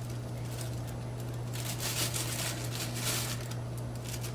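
A tomato corer twisting into tomatoes gives a few short scraping, rustling sounds, about a second and a half in and again around three seconds in, over a steady low hum.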